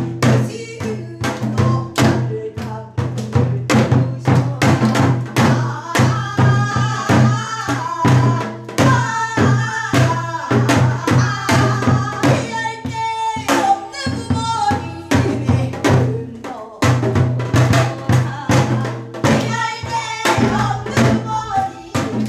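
Women singing a Korean folk song with a wavering vibrato, accompanied by Korean barrel drums (buk) struck in a steady beat.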